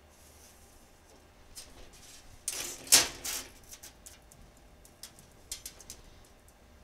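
A steel rule clattering and scraping as it is laid down on sheet steel on a metal welding table, loudest about three seconds in, followed by scattered light taps and clicks as it is handled and the sheet is marked.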